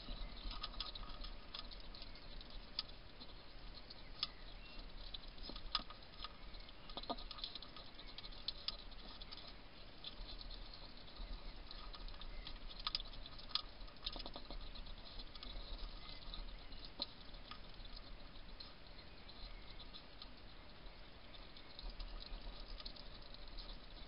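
European hedgehog crunching dry food pellets from a dish: an irregular run of small clicks and crunches over a faint hiss.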